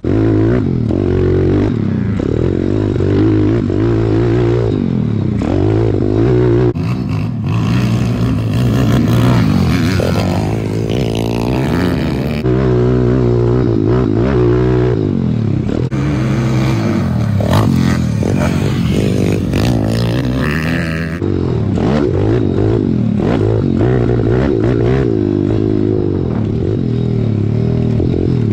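Pit bike engine being ridden hard, its pitch rising and falling over and over as the throttle is opened and closed.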